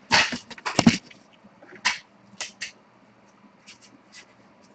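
Handling noise as a camera is picked up and moved: a quick run of clicks and knocks in the first second, a few single clicks around two seconds in, then only faint scattered ticks.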